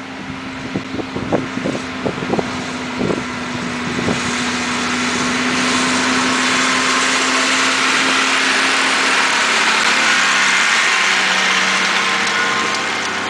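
Massey Ferguson 3085 tractor working with an Amazone Catros 3001 compact disc harrow: a steady engine drone under the rushing, rattling noise of the harrow's discs cutting the soil. It grows louder as the rig comes up and passes close, loudest about ten seconds in. A few sharp knocks sound in the first few seconds.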